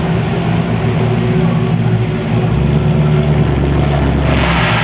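Maserati GranTurismo MC Trofeo race cars' V8 engines running on track, a steady engine note throughout. Just after four seconds a louder rushing hiss comes in over it.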